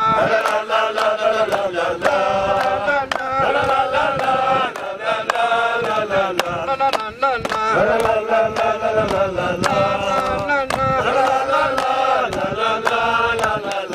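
A group of men singing a Swahili song together in unison, with rhythmic hand claps keeping the beat.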